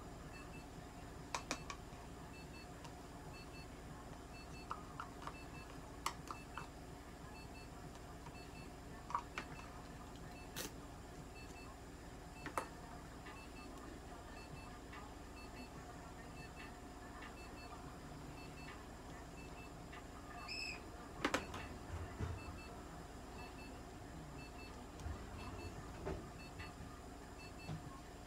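Faint electronic beeping from clinic equipment: short beeps in pairs, repeating at an even pace over a steady hum. Occasional sharp clicks and knocks of handling break in, the loudest about ten and twenty-one seconds in.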